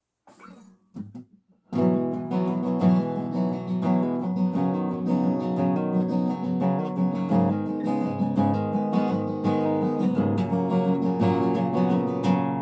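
Dreadnought acoustic guitar playing a chord intro, starting about two seconds in after a couple of faint knocks.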